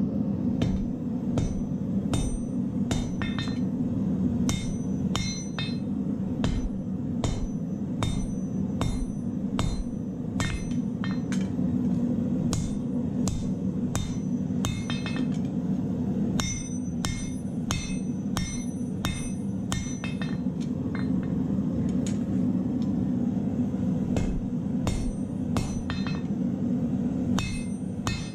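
Hand hammer striking hot steel on an anvil while forging a bolo knife blade: a steady run of ringing blows, about one to two a second. Under the blows runs the steady rushing of a gas forge burner.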